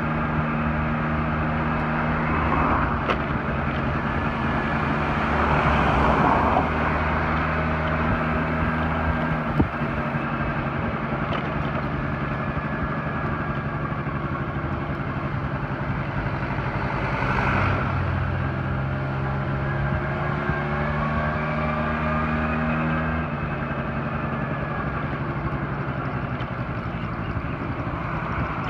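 Moped engine running steadily while riding, with road and wind noise; the steady engine note changes about three quarters of the way through.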